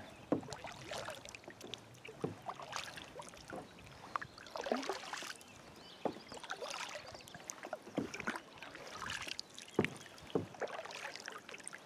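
Kayak paddling: the paddle blades dipping and pulling through calm lake water, with splashes and water dripping off the blades in an irregular rhythm every second or two.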